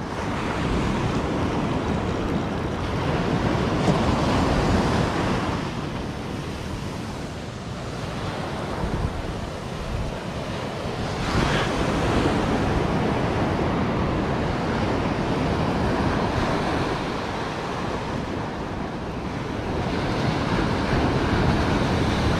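Ocean surf breaking and washing up a sandy beach, a continuous rushing that swells as each wave comes in, with wind buffeting the microphone.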